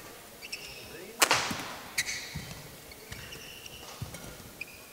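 Badminton rally: rackets strike the shuttlecock with sharp cracks, the loudest just over a second in and another about a second later. Shoes squeak on the court floor in short chirps between the hits.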